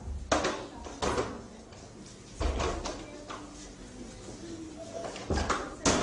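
Irregular knocks and thuds against a refrigerator as a small boy climbs it, with a cluster of knocks near the end.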